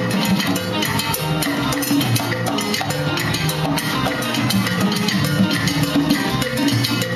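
A salsa band playing live in a descarga jam, with a pair of congas struck by hand among bass and other instruments. The beat is steady and busy.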